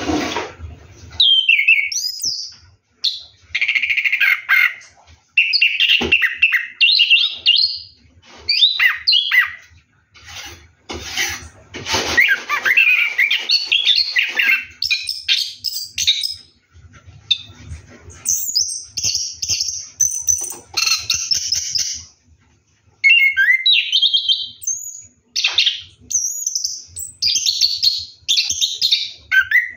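Chestnut-capped thrush (anis kembang) singing in rolling phrases: quick, varied, high song bursts of one to three seconds each, separated by short pauses.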